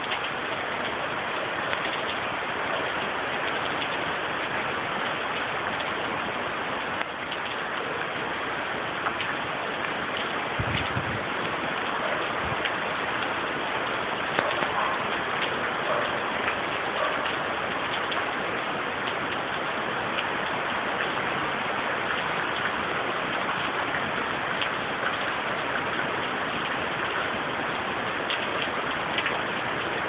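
Storm rain falling steadily, with scattered faint taps of drops close to the microphone.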